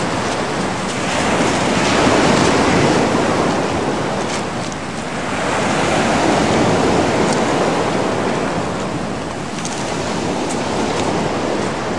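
Sea water washing and splashing, with wind on the microphone, swelling and easing every few seconds.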